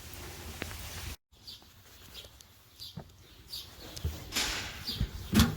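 A small bird chirping over and over in short, falling chirps, with a single loud thump near the end.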